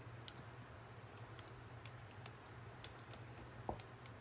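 Faint, scattered clicks and ticks from a plastic canning bubble-remover tool knocking against glass canning jars as it is worked down among packed pickle spears in brine to free trapped air bubbles. One click near the end is a little louder.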